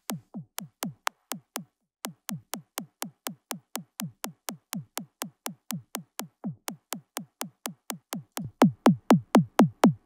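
Repeated synthetic kick-like hits, a tone from Ableton Simpler with a fast downward pitch sweep and a sharp click, about four a second. They play against a phase-inverted copy of the same sample that should cancel them, but it doesn't: the leftover varies in loudness from hit to hit, the sign of timing jitter in Live's audio engine. They stop briefly near 2 s and get much louder about 8.5 s in.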